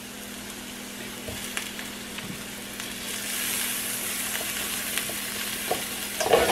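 Sliced mushrooms sizzling in butter in a frying pan, stirred with a metal knife, with scattered light scrapes and clicks. The sizzle grows louder about halfway through as the fresh butter melts into the hot pan.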